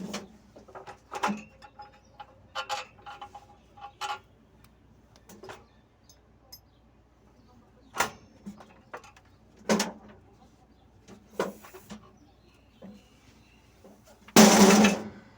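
Scattered metal clicks and knocks from tools and parts while a truck clutch is being dismantled. Near the end comes one loud, noisy burst lasting about half a second.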